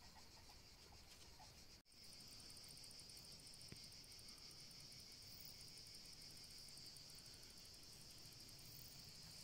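Faint, steady high-pitched chirring of crickets, with a fast pulsing shimmer above the main trill. It cuts out for an instant about two seconds in.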